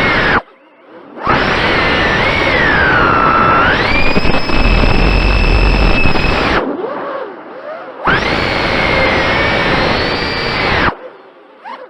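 A 3-inch FPV micro quadcopter's 1407 3600KV brushless motors spinning Gemfan 3035 four-blade props, a loud whine that rises and falls with the throttle. It cuts out abruptly three times as the throttle is chopped, about half a second in, past the middle, and near the end, and comes back on between the cuts.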